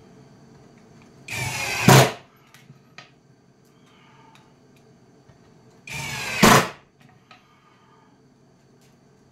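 Cordless drill driving 1¼-inch drywall screws into plywood: two short runs of under a second each, about four and a half seconds apart, each getting louder at the end as the screw seats. Faint clicks and taps come between them.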